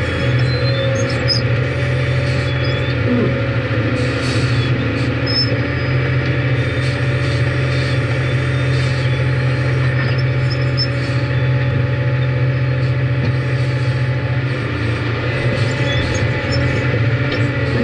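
Cat 615 paddle-wheel (elevating) scraper working as it loads its bowl: the diesel drives a steady, loud drone, with scattered clicks and clanks from the elevator flights and chains.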